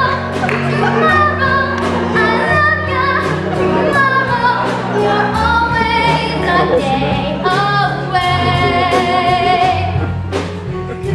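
Show-tune singing over a pit orchestra, with held notes sung with vibrato above sustained low accompaniment.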